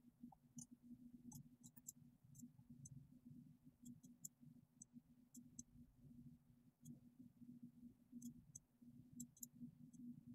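Near silence: faint, irregular computer mouse clicks, some in quick pairs, over a low steady hum.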